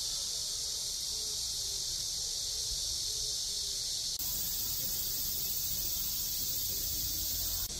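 Steady high-pitched buzzing of summer insects, shifting a little higher about four seconds in.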